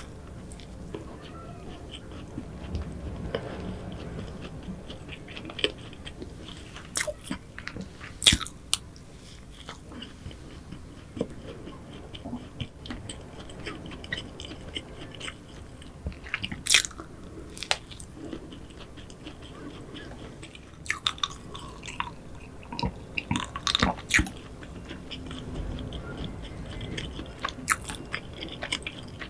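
Close-miked chewing of flaky pastry, with a sharp crackly crunch every few seconds from bites of crust.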